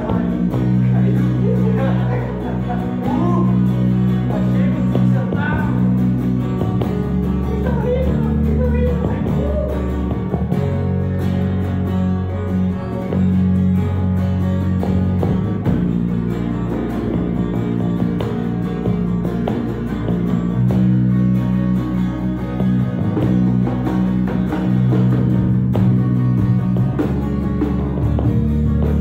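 A rock band playing an instrumental guitar solo over a steady bass line and drums, with the lead guitar gliding in pitch through the first third.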